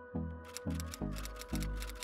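Intro music with a bass note pulsing about twice a second under held tones; a crisp, fast high percussion pattern comes in about half a second in.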